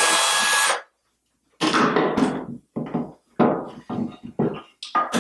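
Cordless drill running, cutting off just under a second in. After a brief silence comes an irregular run of wooden knocks and clunks as willow poles are handled and set down on a wooden workbench.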